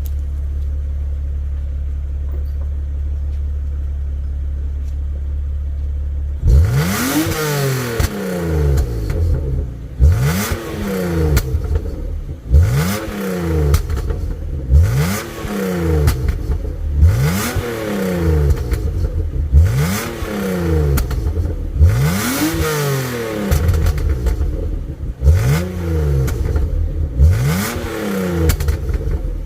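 BMW E36 engine idling steadily, then from about six seconds in revved over and over: the revs shoot up and fall back about once every two seconds.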